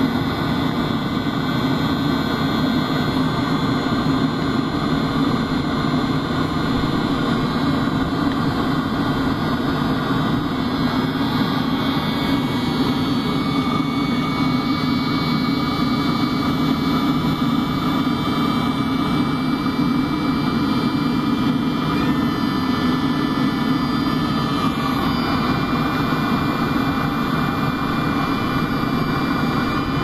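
Webasto diesel heater running steadily at full power: the steady rush of its combustion-air fan and burner.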